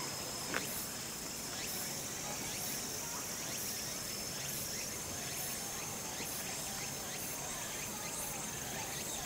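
Insects trilling in chorus: a constant high buzzing with a second, higher chirp pulsing about once a second above it, and a single sharp click about half a second in.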